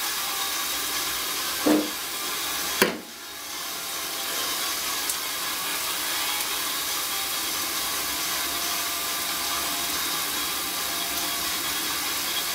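Food sizzling in oil in an electric pan, a steady hiss. Two sharp knocks come about two and three seconds in; after the second, the sizzle dips and builds back.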